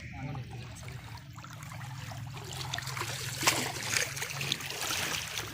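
Shallow water splashing and trickling, getting busier about halfway through, with one sharper splash about three and a half seconds in.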